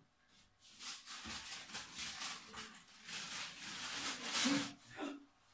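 Rustling and crinkling noise with fine clicks, starting about a second in and stopping shortly before the end, with a short vocal sound near the end.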